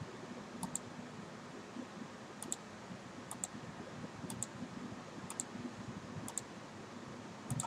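Computer mouse clicking about once a second, each click a quick press-and-release pair, as points of a line are placed in a drawing program. A steady background hiss runs underneath.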